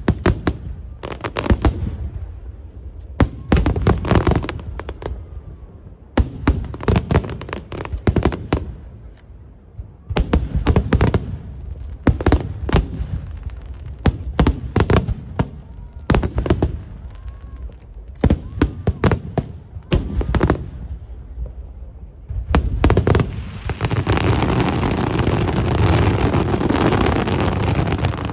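Aerial fireworks shells bursting in quick volleys of sharp bangs, a cluster every second or two. About five seconds before the end they merge into a dense, unbroken stretch of bangs and crackle, which then drops away.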